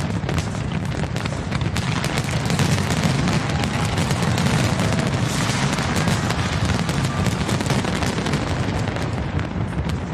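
Fireworks display going off in a dense, continuous barrage of booms and crackling bursts, loudest around the middle.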